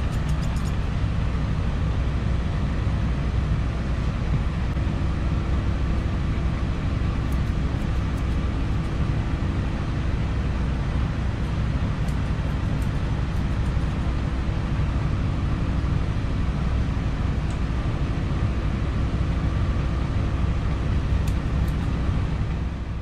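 Steady low machine hum and rumble throughout, with a few faint clicks near the start, again about eight seconds in, and shortly before the end.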